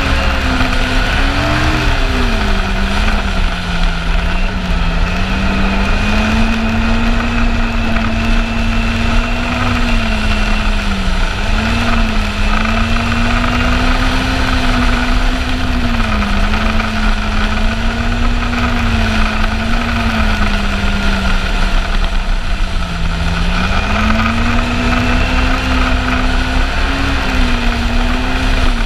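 Yamaha Apex snowmobile's four-stroke four-cylinder engine running at trail-cruising speed, its pitch easing down and climbing back several times as the throttle is let off and reapplied, over a steady low rumble.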